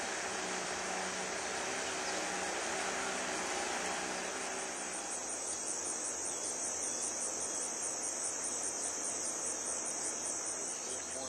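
Insects chirring in a steady high-pitched chorus with a fine rapid pulse. Under it a low outboard motor hum fades out about five seconds in.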